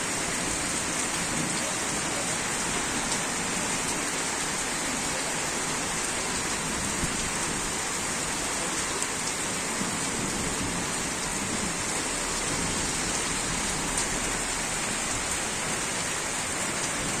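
Heavy rain pouring down on wet pavement: a steady hiss with a fine patter of drops splashing.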